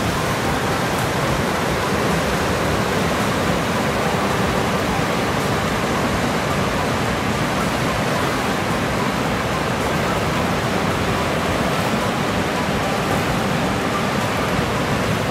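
Fast-flowing river rushing through whitewater rapids, a steady, unbroken noise.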